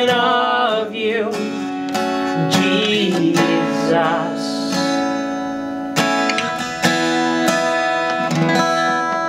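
Worship song played live: strummed acoustic guitar chords with a singing voice.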